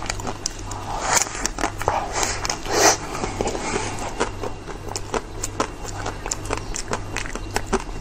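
Close-up eating sounds of biting into and chewing a chocolate-topped ice cream cone: crisp crunches and crackles, densest and loudest about one to three seconds in, then scattered clicks of chewing.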